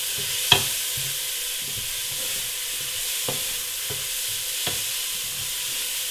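Diced onions and a few pieces of meat sizzling in hot oil in a stainless steel pot as they are sweated and stirred with a wooden spoon. The spoon knocks against the pot a few times, loudest about half a second in.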